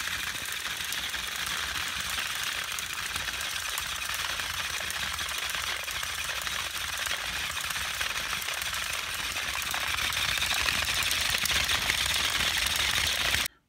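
Two battery-powered TOMY Trackmaster toy engines, Harvey and Whiff, running head to head on plastic track with a steady, rapid rattling buzz of their motors and gears. It grows a little louder toward the end and cuts off suddenly.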